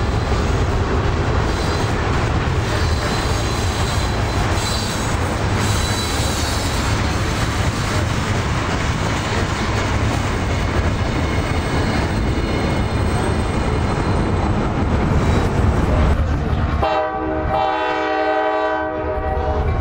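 A freight train's cars rolling past with a steady rumble and clatter of steel wheels on rail. Near the end this gives way to a diesel locomotive's multi-chime air horn sounding one chord for about two seconds.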